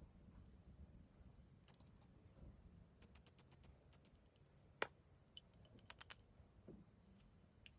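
Faint, sharp little clicks and taps from hands working at slime and plastic makeup packaging. There is a quick run of clicks in the middle and one louder click about five seconds in.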